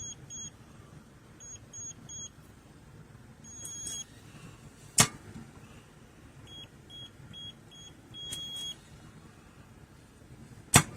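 Electronic beeps from a MOLICAR biometric gun safe's keypad: short high beeps in quick runs of two to five, with a couple of longer single beeps. Two sharp clicks, about five seconds in and near the end, are the loudest sounds.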